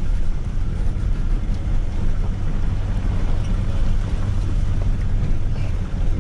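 Pickup truck driving on a loose gravel track, heard from inside the cab: a steady low engine rumble with tyre noise and small scattered ticks of gravel.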